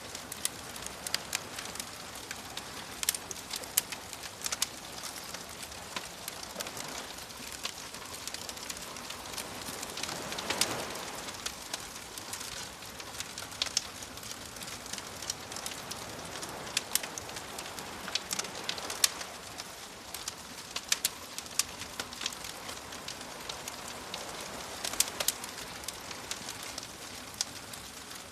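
Campfire crackling with frequent sharp pops over soft ocean waves washing in, with a larger swell about ten seconds in and another a little before the twenty-second mark.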